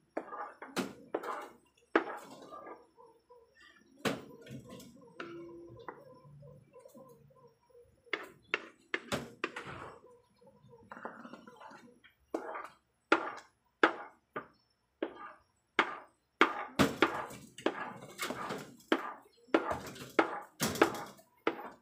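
A ladle scraping and knocking against a pan as thick ube halaya is stirred continuously, in short repeated strokes that come faster and closer together in the second half. The mixture is being worked toward the sticky stage.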